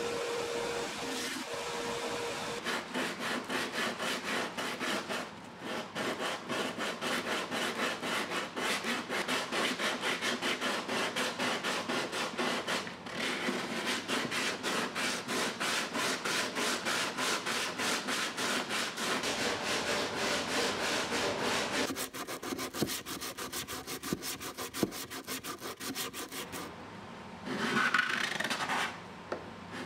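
Fast, even back-and-forth strokes of hand sanding and card scraping on the wooden rim of an octave mandolin body, with the texture of the strokes changing about two-thirds of the way through. A belt sander runs steadily for the first couple of seconds.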